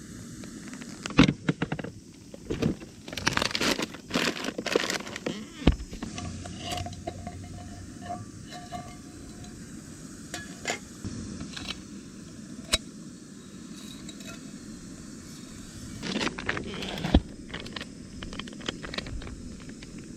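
Camp cookware and tableware being handled: scattered clinks, knocks and rustling, busiest in the first few seconds and again briefly near the end.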